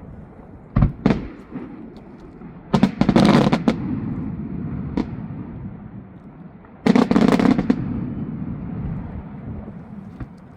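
Fireworks going off: two sharp bangs about a second in, then two loud bursts of rapid crackling bangs, one around three seconds in and another around seven seconds in, over a steady low rumble.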